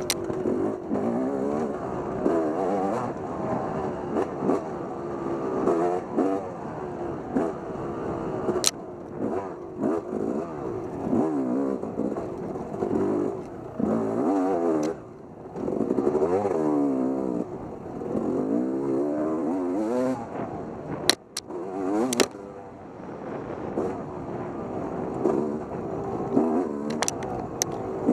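Off-road motorcycle engine being ridden hard, its pitch rising and falling constantly as the throttle is worked and released, with a few sharp knocks and clatters from the bike over rough ground.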